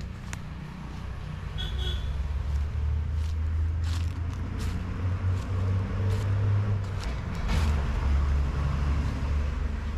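A large engine running steadily with a deep low rumble, with a few short clicks and knocks over it.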